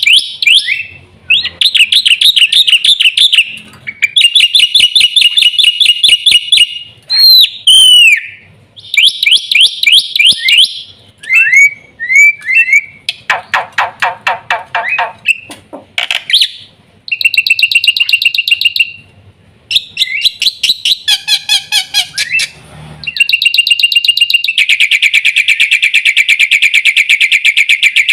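Black-winged myna (jalak putih) singing loudly: varied phrases of rapid rattling, repeated notes and sharp whistles, ending in a long fast trill.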